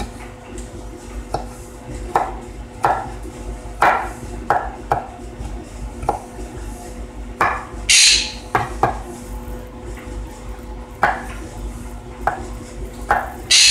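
Large chef's knife chopping garlic on a wooden cutting board: irregular knocks of the blade on the board, with a couple of longer, brighter strokes about eight seconds in and near the end.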